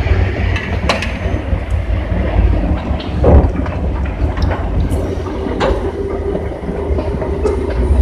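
Amphibious bridging vehicles' diesel engines running with a deep rumble as they drive into the river, with scattered clanks and knocks, the loudest a little past three seconds in. A steady hum joins about five seconds in.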